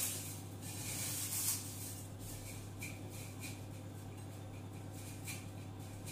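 Cornflakes rustling and crackling as hands press a breaded vegetable ball into a bowl of them: a rustle in the first second and a half, then a few scattered crackles, over a steady low hum.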